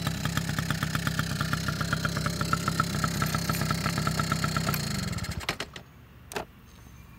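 Honda Motocompo's small two-stroke single-cylinder engine idling with an even beat, then switched off with the ignition key about five seconds in, running down within a fraction of a second. A single sharp click follows about a second later.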